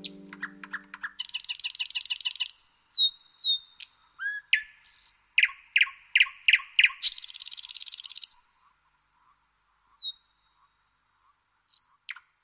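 Songbirds singing: a busy mix of chirps, short whistled notes and two fast trills, thinning out to a few scattered calls after about eight seconds.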